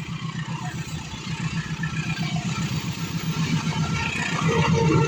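Diesel locomotive engine running with a steady low, pulsing throb, growing louder as the train approaches.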